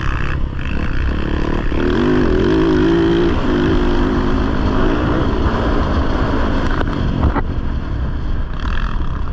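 Dirt bike engine running under changing throttle, its pitch rising and falling a couple of seconds in and then holding steadier, with heavy wind rumble on the microphone.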